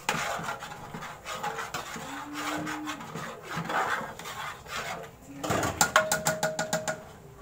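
Raw rice going into a large aluminium pot of simmering millet and dal, with rough rustling and scraping as it is tipped in and worked in by hand. Near the end a spoon stirs briskly against the pot in a quick run of regular scrapes, about eight a second.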